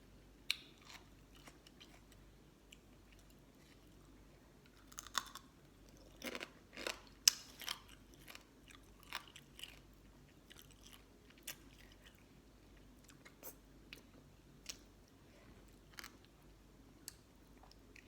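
A person chewing and biting into spicy green mango salad with pickled sea crab close to the microphone: scattered crisp crunches, bunched together around the middle, then lighter chewing clicks.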